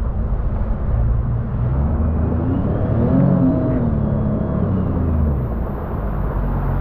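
Jet ski engine running at low speed under heavy wind buffeting on the microphone, with hissing water spray; its pitch climbs about two seconds in and falls back by about five seconds in as the throttle is worked.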